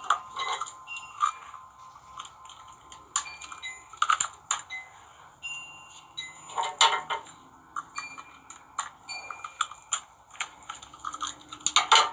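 Small steel wire rope clips being handled: repeated light metallic clinks, some ringing briefly at different pitches.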